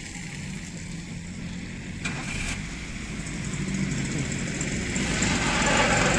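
A car's engine running under light throttle as the car tries to pull free on a snowy, slippery road. About two seconds in there is a brief sharp sound, and over the last second or so a hiss builds and grows louder.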